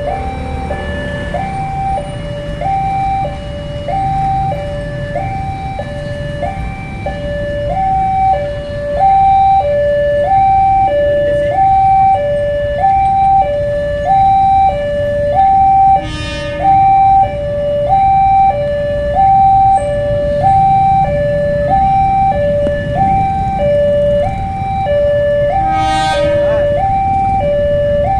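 Railway level-crossing warning alarm sounding a steady two-tone high-low pattern, about one cycle a second, warning that a train is approaching. Motor vehicle engines idle underneath, and two short horn blasts sound, one about halfway through and one near the end.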